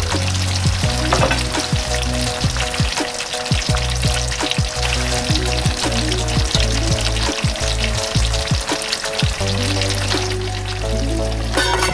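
Pot of Korean spicy braised chicken cooking in its thick red sauce, sizzling and bubbling with frequent little pops.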